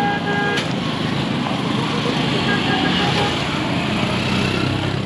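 Busy road traffic: a steady mix of vehicle engines and tyre noise passing close by.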